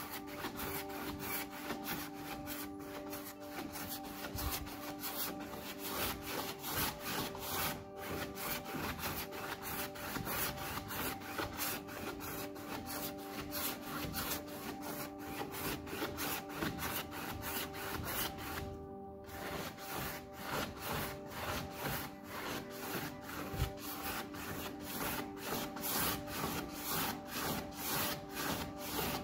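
Quick, regular back-and-forth rubbing strokes on a surface, pausing briefly about two-thirds of the way through, over soft background music with held notes.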